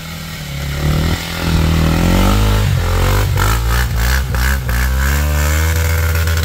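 Motorcycle engine revving hard and unevenly, its pitch climbing, dipping and climbing again, as the rear tyre spins for grip in slippery mud.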